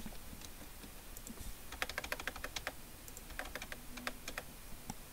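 Faint typing on a computer keyboard: two short runs of quick keystrokes, about two seconds in and again near four seconds.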